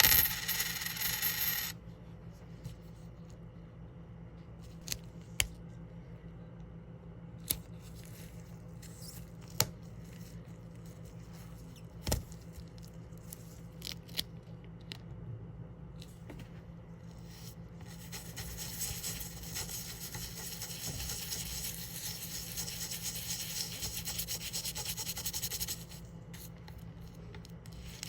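Scrubbing and rubbing on a 1960 penny being cleaned: a short burst of rubbing at the start, then a handful of sharp clicks and taps, then a steady, rapid scrubbing that runs for several seconds and stops shortly before the end. A low, steady hum sits underneath.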